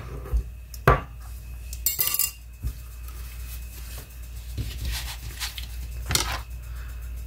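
Spoon and glass bowl clinking and knocking as guacamole is spread and the bowl is set down on the counter: a few separate clinks, a short clatter about two seconds in, and one more near the end, over a low steady hum.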